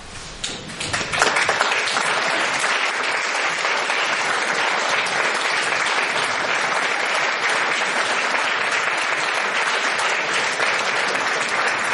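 Audience applauding in a concert hall: a few scattered claps, then, about a second in, full steady applause.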